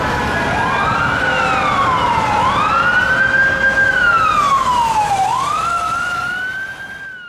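Emergency vehicle siren wailing in slow rising and falling sweeps, each rise and fall taking about two seconds, over a low rumble; it fades out near the end.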